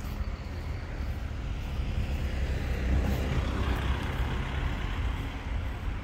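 Road traffic: a vehicle's engine and tyre noise on tarmac swelling about three seconds in and then easing, over a steady low rumble.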